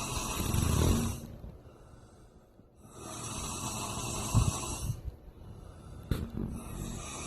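A man snoring in his sleep: a snore about every four seconds, each lasting around two seconds, with quieter gaps between. A brief click comes a little after six seconds in.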